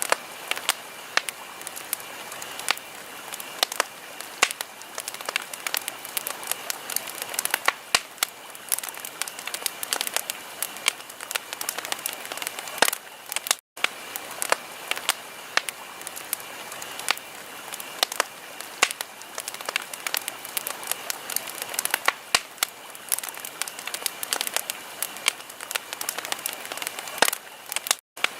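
Wood fire crackling: irregular sharp pops and snaps over a steady hiss. The sound cuts out to silence for a moment twice, about halfway through and at the very end.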